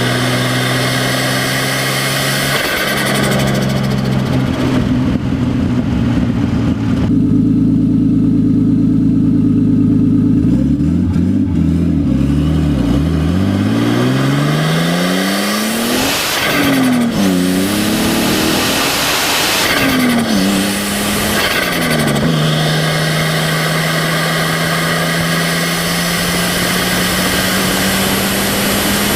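Straight-piped RB25DET turbocharged straight-six in a Nissan 240SX, with no exhaust and no blow-off valve, idling, held at a raised speed for several seconds, then blipped several times so the revs rise and fall, before settling back to a steady idle. As the throttle shuts on each blip the turbo flutters, because boost has no blow-off valve to vent through.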